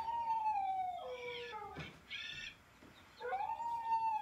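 Recorded wolf howls played back: two long howls, each held near one pitch and slowly falling, one at the start and another about three seconds in, with shorter, higher calls between them.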